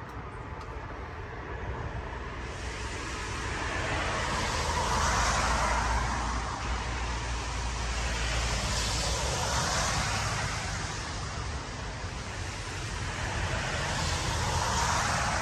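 Road traffic passing on a nearby road: three cars go by in turn, each a rising and falling rush of tyre noise over a low rumble.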